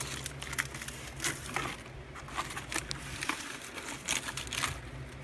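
Dry palm frond rustling and crackling as it is handled and pushed into place against the sand and plastic sides of a reptile tub: irregular short crackles and clicks over a low steady hum.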